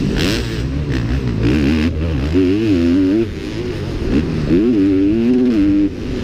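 Motocross race bike's engine at full throttle, revving up and down as it accelerates through the gears, with brief drops in level about three seconds in and near the end as the rider shifts or backs off. Wind rush over the bike-mounted microphone.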